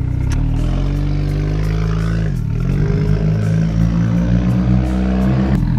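Off-road 4x4's engine revving up under load, its pitch dipping briefly about halfway through before climbing back and holding high and uneven.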